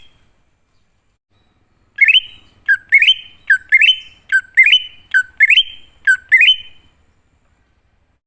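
Cucak ijo (greater green leafbird) singing: a run of about six repeated phrases, each a quick dip then a rising note, starting about two seconds in and stopping shortly before the end.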